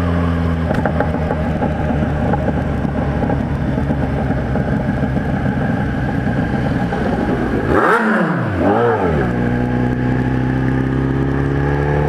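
Kawasaki Z1000 inline-four motorcycle engine running through a 4-into-1 aftermarket exhaust while riding. About eight seconds in the revs drop and climb back up, as with a gear change, then the engine pulls steadily again.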